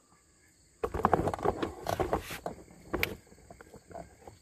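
About a second in, a burst of rapid clattering and knocking lasts roughly two seconds, then thins to scattered fainter clicks, as a hooked fish is fought on a bent rod from a small boat.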